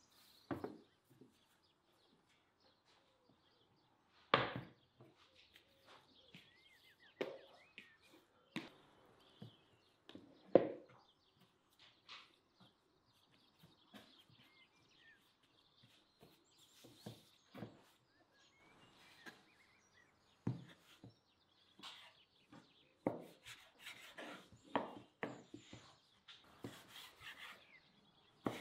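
Irregular knocks and soft thuds of bread dough being handled and pressed on a floured wooden board, with a few sharper knocks. They come thicker near the end as a knife cuts the dough against the wood.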